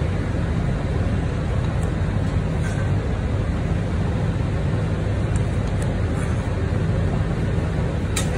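Steady low drone of commercial kitchen machinery, with a few faint taps of a knife on a wooden cutting board and a sharper click near the end.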